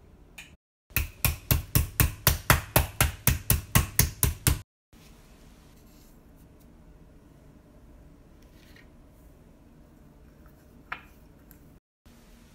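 Fast, even knocking in food preparation, about five hard strokes a second for nearly four seconds, then stopping abruptly.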